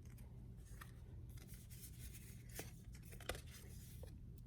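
Faint rustling and light clicks of tarot cards being handled and slid one past another, over a low steady background hum.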